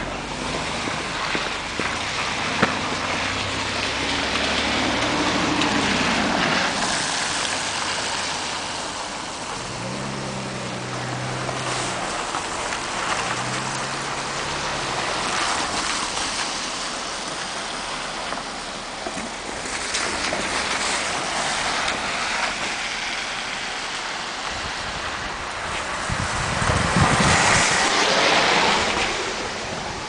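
City street traffic on wet, slushy roads: a steady hiss of tyres and passing vehicles, with a low engine hum at times and one vehicle passing closer and louder near the end.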